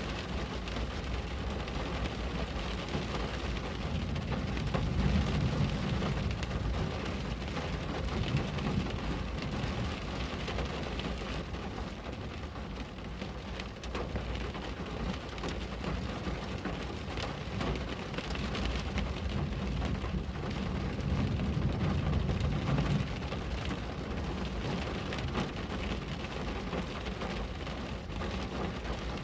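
Steady rain pattering on a window pane. A low rumble swells twice, about a sixth of the way in and again about two-thirds of the way through.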